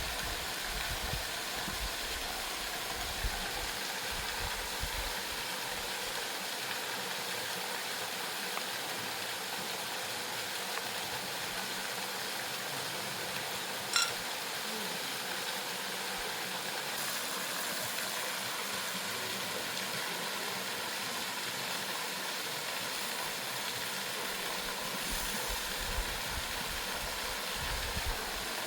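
Steady rushing of a waterfall, with a single sharp clink about halfway through.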